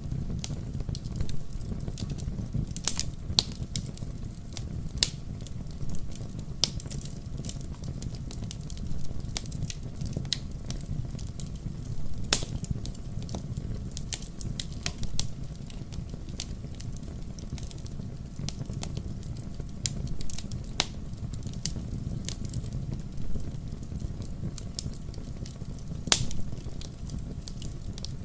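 Fireplace fire burning: a steady low rumble of flames with frequent, irregular sharp crackles and pops.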